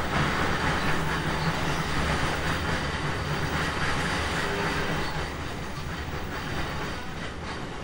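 JR East E721-500 series electric train heard from inside the car while running: a steady rumble of wheels on rail with a low hum from the running gear, easing a little after about five seconds.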